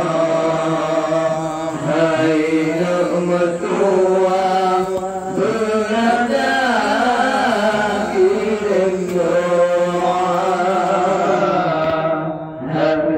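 A man chanting an Acehnese qasidah into a microphone, unaccompanied. His voice holds long notes that waver and bend in pitch, with a short break for breath near the end.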